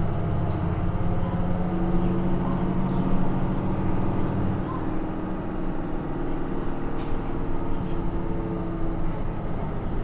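Nissan Diesel JP city bus's diesel engine running under load while the bus is driven, a steady drone whose pitch eases slightly in the second half.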